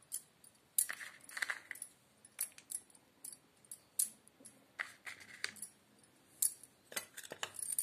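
A spoon clinking against a stainless steel plate: a dozen or so sharp, irregular clinks spread through.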